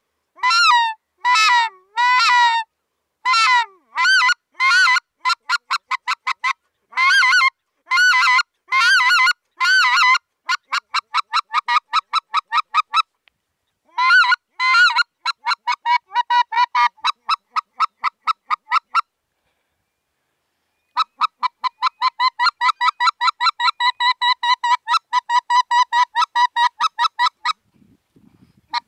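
Hand-blown goose call sounding honks. It starts with several drawn-out honks, then speeds into quick runs of shorter honks, broken by two short pauses. It ends in a long, fast string of clipped honks, about three or four a second. This is the call sound meant to bring geese back in.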